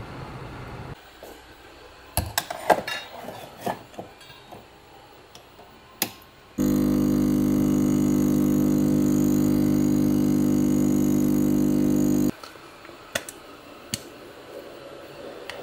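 Espresso machine pump humming loudly and steadily for about six seconds as a shot pours into a cup, then cutting off. A few light clinks and knocks come before it and a couple after.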